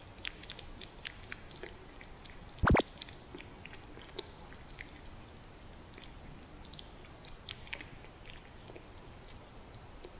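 Kitten eating from a dish: a run of small, quick, wet chewing and licking clicks. One loud, short thump breaks in about two and a half seconds in.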